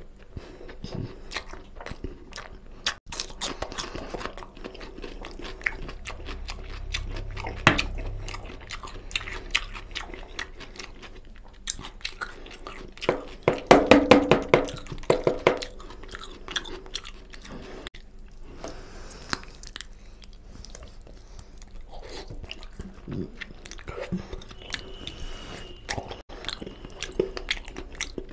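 Close-miked mouth sounds of a person eating goat trotter (mutton paya) curry with rice: chewing, with many wet clicks and smacks. A louder stretch of noises comes about halfway through.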